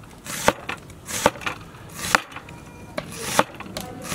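A broad-bladed kitchen knife slicing a raw onion on a wooden cutting board: slow, even strokes, each a short crunch through the onion ending in a knock of the blade on the board, four in all, about one a second.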